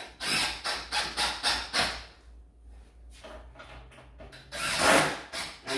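Power drill driving wood screws through the wooden chip rail into the table frame, in short bursts with a pause in the middle; the loudest burst comes about five seconds in.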